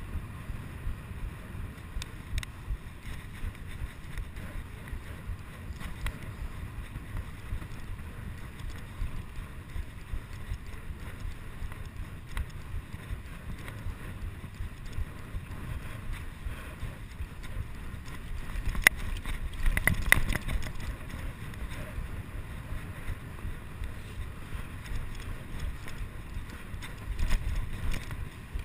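Wind buffeting and rumble on a chest-mounted GoPro action camera's microphone as a bicycle is ridden fast on a paved path, with frequent small knocks and rattles from bumps. About two-thirds in there is a sharp click and a louder rattling patch lasting a couple of seconds, and a shorter louder patch near the end.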